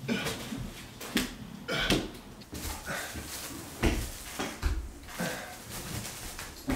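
Irregular knocks and thumps of a person crawling on a hardwood floor, hands and knees landing and toilet paper rolls bumping along the boards.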